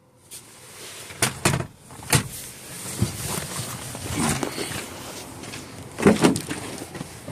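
Sharp clicks and knocks of hands working a car's door handles and body panels: a few in the first couple of seconds and a louder cluster near the end, with handling noise in between.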